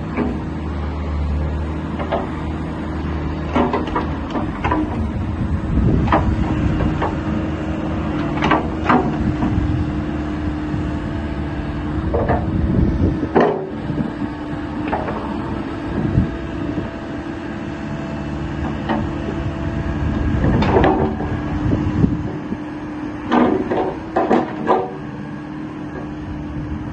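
JCB 8060 mini excavator's diesel engine running steadily as the boom, arm and bucket are worked and the upper structure slews. Short metallic clanks and knocks from the working gear come every few seconds, bunched together near the end.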